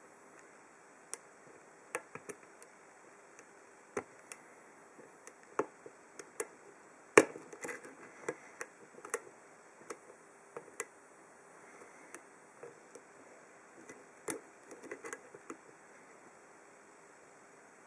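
Lock pick and pin tumblers inside an Abus 83/45 brass padlock: scattered, irregular small clicks and taps as the pins are lifted and set, with one sharper click about seven seconds in.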